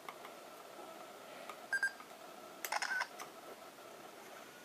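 Sony Mavica FD90 digital camera's electronic beep about two seconds in, then a quick cluster of clicks with another short beep a second later, as movie recording starts.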